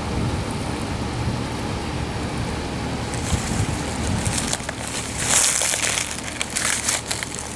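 Wind blowing across the microphone, a low rumble at first, then a rustling hiss with many faint ticks from about three seconds in.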